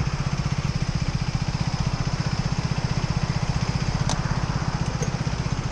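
Motorcycle engine idling with a steady, rapid pulse. A faint click about four seconds in as a gloved hand pushes a car's fuel filler flap shut.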